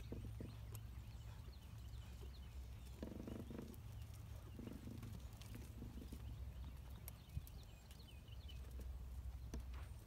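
A horse trotting on arena sand, its hoofbeats soft and muffled, over a steady low rumble and scattered faint high chirps.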